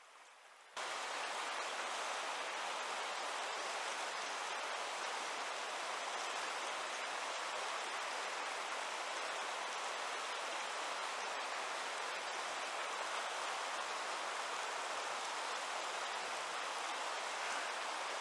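River rapids rushing steadily, a dense unbroken roar of whitewater that starts abruptly about a second in.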